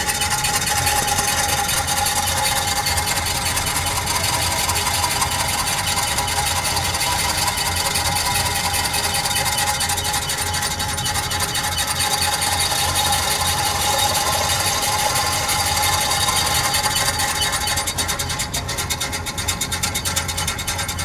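Small electric motor driving a Meccano gear train, running steadily: a continuous mechanical whir of meshing brass gears with a steady high whine.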